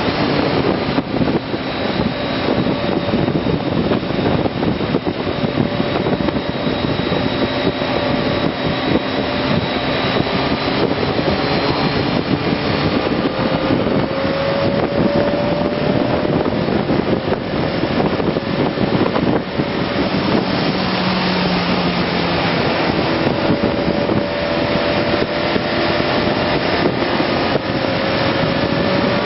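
BMW K1200S motorcycle's inline-four engine running under heavy wind rush on the microphone, its pitch climbing slowly as it accelerates around the middle and again near the end.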